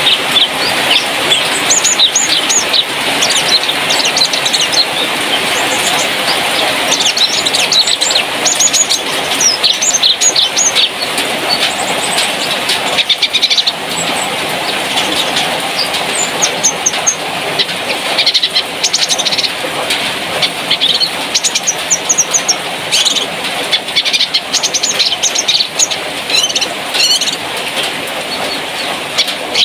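Cucak kinoi song: rapid, high chirps and trilled phrases repeating throughout, over a dense, continuous chattering background.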